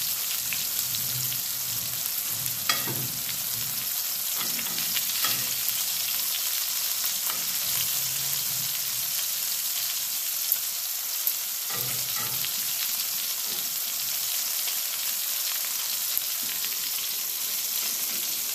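Steaks sizzling steadily in a hot cast iron skillet, with a few light metal clicks of tongs against cast iron as hot dogs are turned in a second pan.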